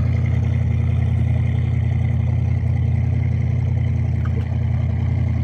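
A boat's motor running at a steady low drone.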